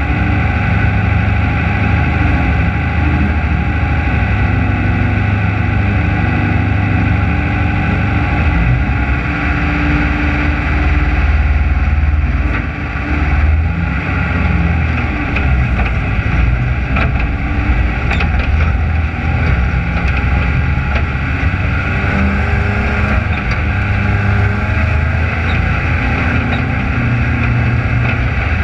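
Race car engine running at low revs, heard up close from the car itself, with small rises and falls in pitch as the throttle is worked while the car sits and then rolls slowly.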